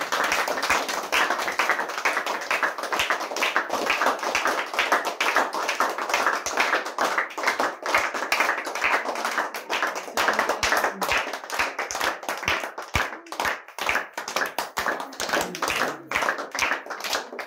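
A group clapping hands in fast, continuous applause, which thins into fewer, more separate claps near the end.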